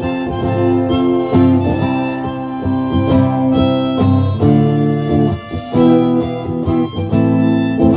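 Live acoustic music: harmonica playing held notes and a melody over acoustic guitar, the chords changing every second or so.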